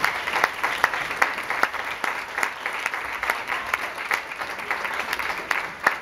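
Theatre audience applauding: many hands clapping at once in a steady, dense clatter.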